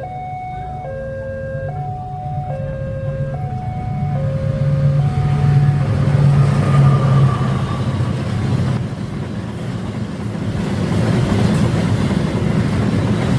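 A two-note warning signal alternating low and high, about one note a second, fades out about five seconds in. Meanwhile a passing train's rumble and engine hum grow loud and carry on.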